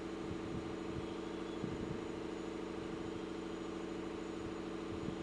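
A steady, unchanging hum in the room, with a couple of faint soft knocks about two seconds in.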